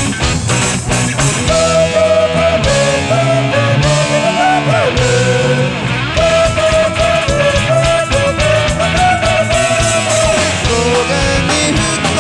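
Rock band music, loud and continuous, with a sung vocal melody over the band.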